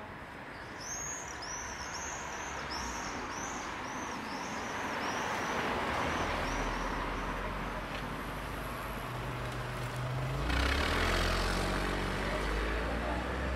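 Cars passing along a city street over steady traffic hum: one passes about five seconds in and a second, louder one about eleven seconds in. A run of high, evenly spaced chirps sounds through the first half.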